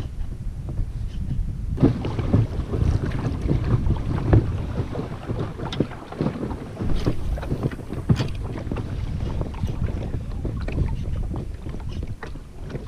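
Wind buffeting the microphone over water around an inflatable boat, a steady low rumble. From about two seconds in come irregular clicks and knocks.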